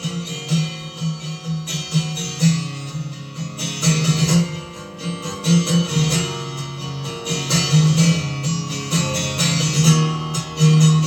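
Acoustic guitar strummed in a steady rhythm, an instrumental passage between sung verses of a solo singer-guitarist's song.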